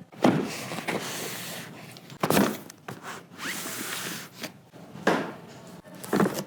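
Rubbing and scraping of hardware or packaging being handled, with about six louder strokes spread through it.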